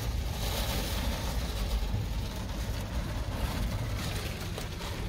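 Heavy rain and gusting wind beating on a car, heard from inside the cabin: a steady rush with a deep rumble underneath.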